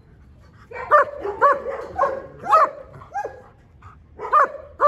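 German Shepherd barking repeatedly: a quick run of about five barks, a short pause, then two more near the end.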